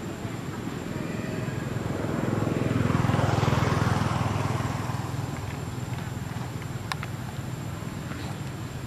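A motor vehicle passing on a nearby road: its engine grows louder, is loudest about three and a half seconds in, then fades away. A short sharp click comes near the end.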